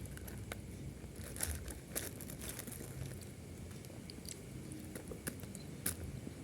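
Close-up eating sounds: chewing and crunching food, with scattered small clicks and crackles.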